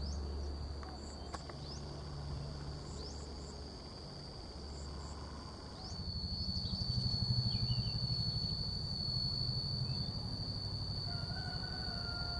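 A steady, high-pitched insect drone that gets louder about halfway through, over a low rumble that also swells at the same point.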